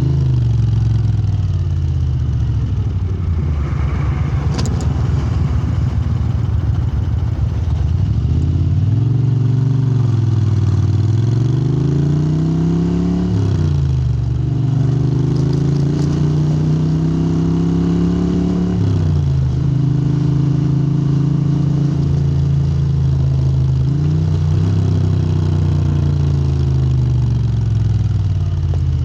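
Moto Guzzi V-twin with a Lafranconi exhaust running under load. Its pitch dips and climbs again about a third of the way in, drops sharply twice like gear changes about halfway and two-thirds of the way through, then holds fairly steady.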